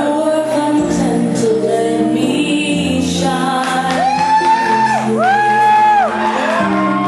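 Song playing loudly, a singer holding long notes that swoop up and fall away, two of them held for about a second each, over a steady backing track.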